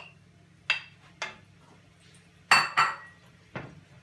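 Metal kitchen utensil clinking against cookware while mushrooms are tipped into a frying pan: five sharp knocks, each with a brief ring, the loudest two close together about two and a half seconds in.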